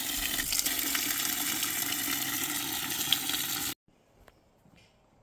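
Water running steadily into a container, filling it. It cuts off abruptly a little over three and a half seconds in, leaving only faint low background.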